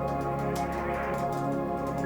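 Soft ambient music of sustained, steady tones, with a light, irregular patter of small clicks from typing on a keyboard over it.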